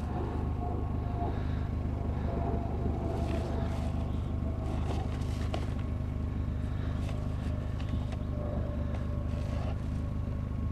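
A steady low hum, with faint clicks and rustling on top.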